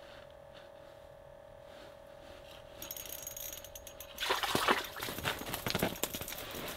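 Rapid clicking and ticking like a small fishing reel being wound in, starting about three seconds in. Louder knocks and rustling follow about a second later. A faint steady hum runs through the quiet first half.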